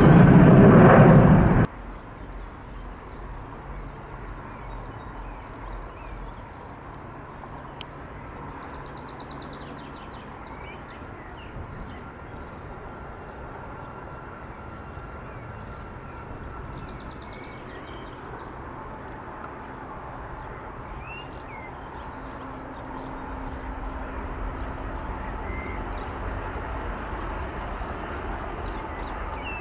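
Loud jet airliner noise cuts off abruptly about two seconds in, leaving outdoor ambience of songbirds chirping and trilling over a low distant hum. The hum of an approaching aircraft grows louder over the last several seconds.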